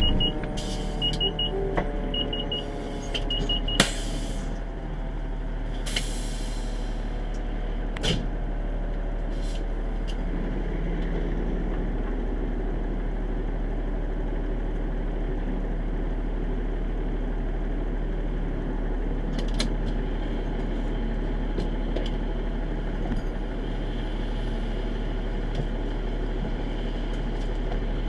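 Fire engine's diesel engine running steadily after the truck pulls up. Over the first few seconds its siren winds down in falling tones, short paired beeps sound, and an air brake hisses once about six seconds in.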